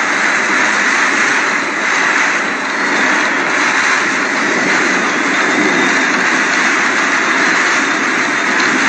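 Hurricane-force wind blowing steadily with driving rain, a loud, unbroken rush with no let-up.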